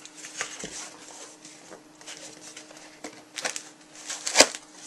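Cardboard camera box being opened by hand: faint rustling and scattered light taps and clicks of flaps and packaging, with a sharper knock about four and a half seconds in, over a faint steady hum.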